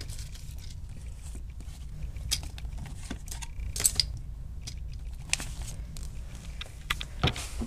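Comic book's paper cover rustling and crackling as it is handled close to the microphone, with scattered clicks over a low steady rumble of handling noise.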